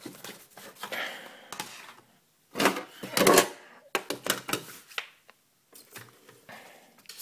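Handling noise: an irregular run of knocks, clicks and rustles as the recording phone is moved about and objects on the desk are picked up, loudest about three seconds in.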